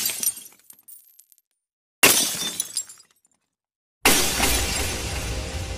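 Glass-shattering sound effects. There are three sudden crashes, one at the start, one about two seconds in and one about four seconds in. The first two die away into scattered clinks and then cut to silence. The last runs on into a low rumble as music begins.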